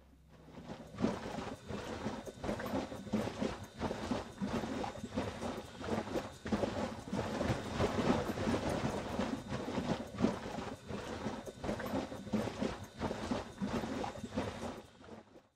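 Butter being churned in a large skin bag that is shaken back and forth: the milk inside sloshes and thumps in a quick, steady rhythm, which cuts off near the end.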